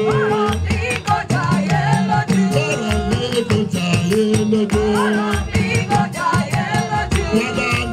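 Live church praise music: voices singing over a band with a bass line and a quick, steady rattling shaker beat.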